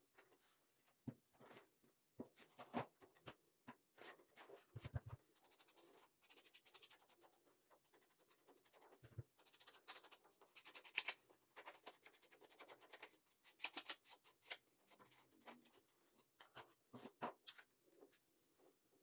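Faint paper handling with a few soft knocks, then a long run of quick, scratchy strokes in the middle: a round ink blending brush being worked along the edge of a patterned paper triangle.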